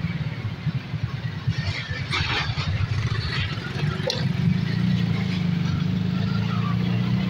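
Motorcycle engine running with a fast, low putter, which turns steadier and a little louder from about halfway through. A brief rush of noise comes about two seconds in, and a click just after the middle.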